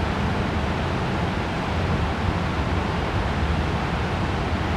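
Citroën Saxo 1.6 8V four-cylinder engine idling through its exhaust: a steady low hum under an even hiss, with no revving.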